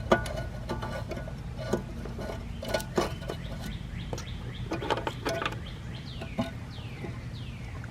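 Light clicks and taps of small parts and tools being handled, over a steady low hum. From about six seconds in, a bird calls a run of short, falling chirps about half a second apart.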